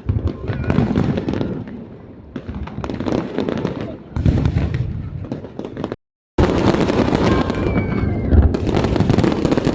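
Aerial fireworks going off in a rapid, overlapping series of bangs and crackles, with a brief cut to silence about six seconds in.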